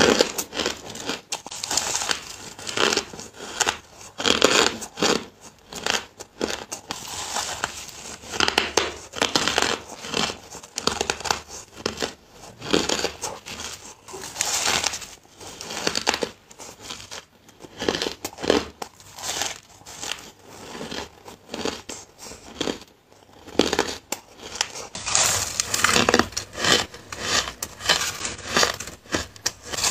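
Crunching of granular, crumbly frozen ice being bitten and chewed, an irregular run of crisp crunches several a second with short pauses between bites.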